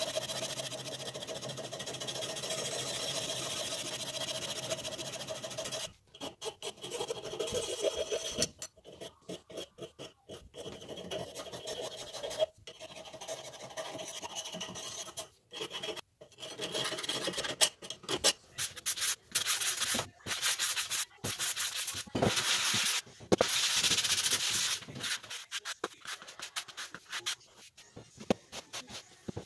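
A hand file rasping back and forth across the end of a short metal tube held in a bench vise, in irregular strokes with short pauses. For about the first six seconds a steady machine noise with a held tone is heard instead.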